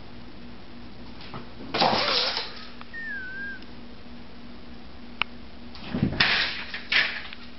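House cat on a wooden floor: a brief scuffle about two seconds in, then a cluster of thumps and scrabbling as it leaps against a door near the end. A short wavering high chirp sounds midway, over a faint steady hum.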